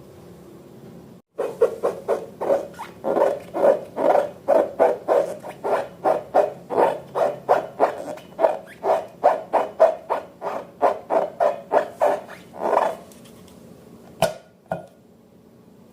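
Slime being squeezed and pressed by hand, making a rhythmic run of wet squelches about three a second that stops near the end, followed by two sharp clicks.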